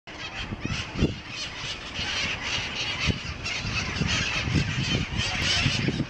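A large flock of parrots squawking and screeching together in the trees, a dense, continuous racket of overlapping harsh calls. A few short low thumps come through underneath, the loudest about a second in.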